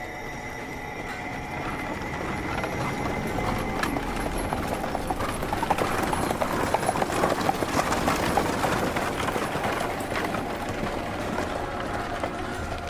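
Horse hooves clip-clopping as a horse passes by, building to their loudest in the middle and fading near the end, over a steady rumbling city-street ambience.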